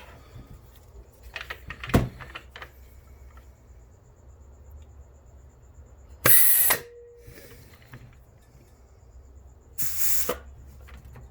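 Two short blasts of compressed air, about six and ten seconds in, blown into the clutch apply passages of a GM 4L60E transmission drum during an air check. A sharp knock comes about two seconds in.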